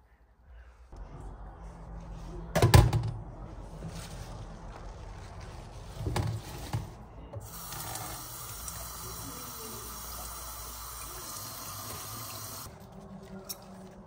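Kitchen tap running into a stainless steel sink while green onions are rinsed in a metal colander, with a sharp knock about three seconds in and another about six seconds in. The water runs hard for several seconds and stops near the end.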